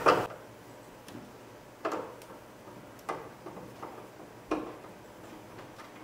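Phillips screwdriver turning out the screw that holds a Toyota Sienna's front side marker lamp: sharp clicks about once a second, the first the loudest.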